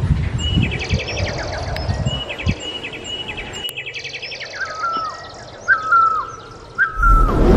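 Small birds chirping in quick repeated trills. From about halfway, a whistled phrase that falls in pitch repeats about once a second, and a low thump comes near the end.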